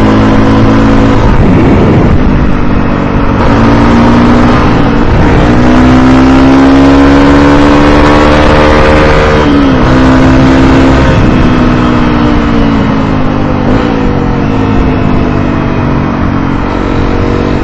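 Motorcycle engine running under way, its pitch climbing slowly and then dropping several times as it accelerates and shifts gears, over a low rumble of wind.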